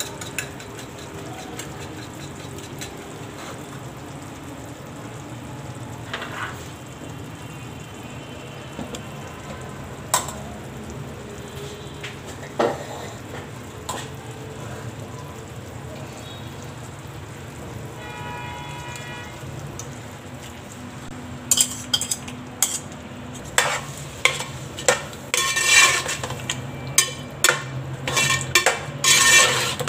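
Onions and potatoes frying steadily in oil in an aluminium pot, with an occasional clink. About two-thirds of the way in, a metal spoon starts scraping and knocking repeatedly against the pot as yogurt masala is stirred into the fry.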